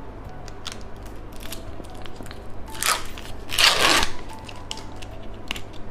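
Plastic wrapper of a bottle-shaped ice pop being crinkled and peeled open: scattered small crackles, then a short tear about three seconds in and a longer, louder one right after.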